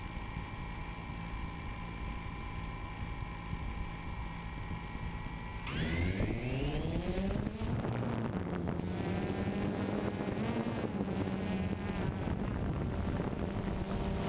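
DJI Phantom 2 quadcopter's electric motors and propellers running with a steady hum while it sits on the ground, then, a little under six seconds in, spooling up with a sudden rising whine as it lifts off. In the climb and flight the buzz wavers up and down in pitch as the motors change speed, heard from the camera on the drone itself.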